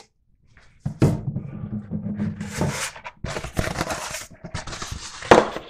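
A rolled paper poster being unrolled and handled by hand, the stiff paper rustling and crackling, starting about a second in, with a sharper crackle near the end.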